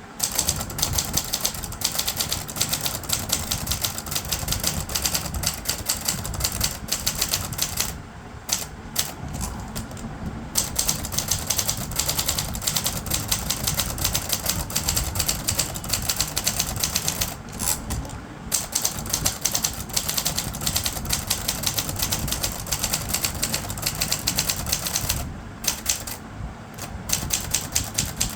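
Adler Tippa S portable manual typewriter being typed on: a fast, continuous run of key strikes, easing off briefly about eight, seventeen and twenty-five seconds in.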